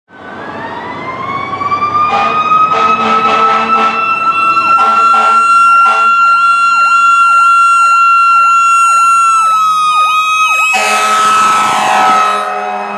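Fire apparatus responding under sirens: a mechanical siren winds up to a steady wail while an electronic yelp siren cycles about twice a second, with short repeated air horn blasts in the first few seconds. Near the end the tiller ladder truck passes close, adding a rush of engine and road noise.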